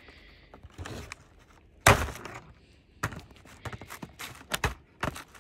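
Stiff clear plastic toy packaging being handled and cut with a blade. A loud knock comes about two seconds in, then a run of sharp clicks and crackles.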